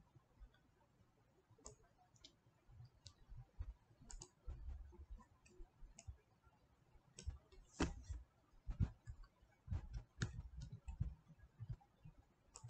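Faint computer mouse clicking, irregular single clicks with a few soft low bumps among them.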